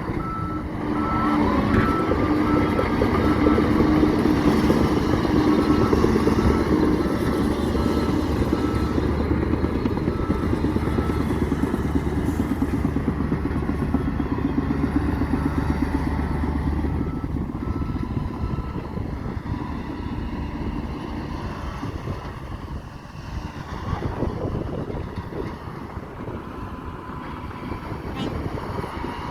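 Radio-controlled dump truck and bulldozer models running: a steady, fast-pulsing engine-like motor sound with some whine, louder through the first half or more and easing off later.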